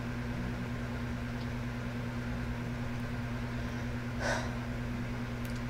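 Steady low room hum with two constant low tones, and one brief soft noise about four seconds in.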